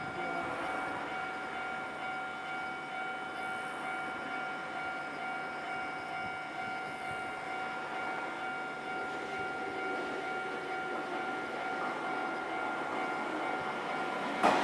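Japanese level-crossing warning alarm ringing steadily as a train draws near. The rumble of the train grows slowly and turns into a loud rush at the very end as it reaches the crossing.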